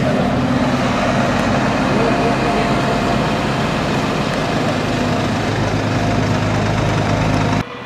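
Emergency vehicles' engines idling steadily, a low continuous hum, with voices talking in the background; the sound cuts off abruptly near the end.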